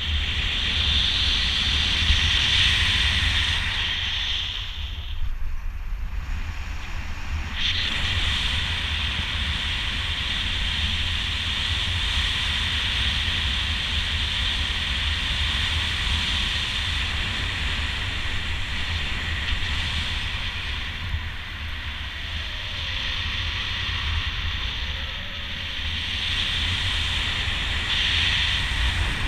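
Airflow rushing over the camera microphone during a speedflying flight under a miniwing: a steady windy hiss with a deep buffeting rumble. The rushing briefly falls away about five seconds in, then returns suddenly near the eight-second mark.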